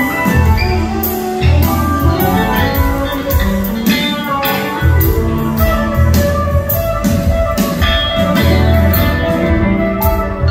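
Live band playing, heard from within the audience: a steady drum beat with upright bass, keyboards and guitar.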